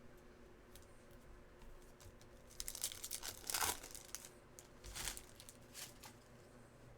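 Crinkling and rustling of card packaging being handled, in a few short bursts around the middle.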